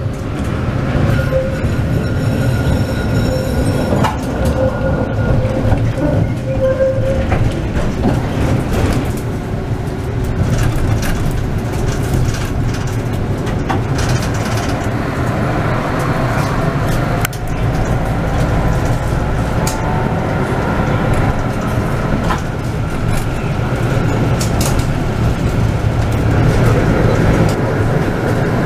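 Tram running, heard from inside the driver's cab: a steady rumble of the wheels on the rails, with scattered clicks over the track and a motor whine that glides up and down in pitch in the second half.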